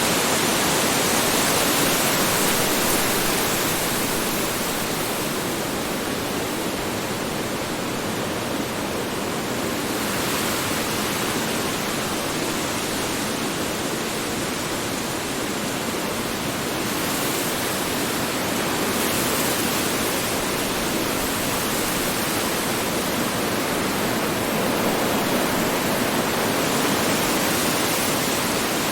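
Strong wind blowing in a steady rush, swelling and easing slowly every few seconds.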